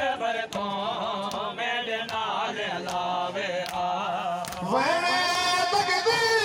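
Men chanting a noha in a steady rhythm, with sharp beats of matam (hands striking bare chests) falling about every two-thirds of a second. About three-quarters of the way in, the chanting changes to long held notes and gets a little louder.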